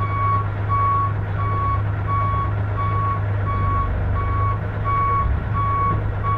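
Reversing alarm beeping steadily, about three beeps every two seconds, the sign that the coach is in reverse. Under it is the low, steady running of the coach's Detroit Diesel 6V92TA two-stroke V6 diesel engine.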